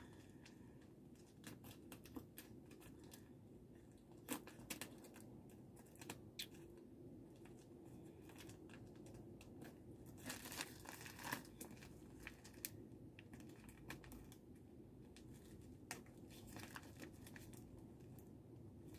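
Faint crinkling and rustling of a plastic mailer envelope being handled and cut open with scissors, with scattered small clicks and a short louder stretch of rustling about ten seconds in.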